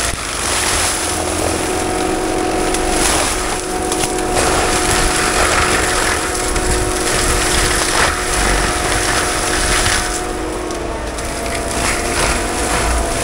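Forestry mulcher on a Cat 299D3 compact track loader running with a steady high whine, its drum grinding through brush with scattered snaps of breaking wood.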